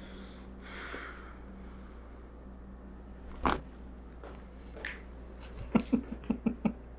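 Chiropractic neck adjustment: a sharp crack of the neck joints about halfway through, then a quick run of short, loud pops and bursts near the end.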